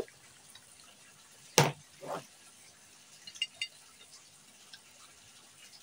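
Close-miked eating sounds at a meal of fried noodles and raw carrot: a sharp crunch-like sound about one and a half seconds in and a softer one just after, then a few light clicks of chopsticks on a plate.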